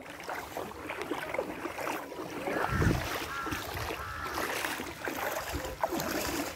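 Wind blowing on the microphone over open floodwater, with one strong gust about three seconds in, and water moving in the background.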